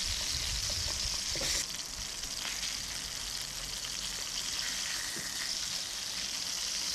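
Fish frying in a skillet, a steady sizzle that drops a little in loudness about one and a half seconds in and then carries on.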